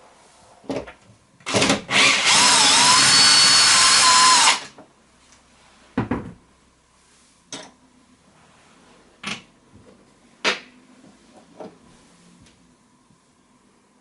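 Cordless drill-driver removing the screws of a uPVC window handle: two short bursts, then a steady whine of about two and a half seconds whose pitch dips once and recovers. After it stops come several separate clicks and knocks.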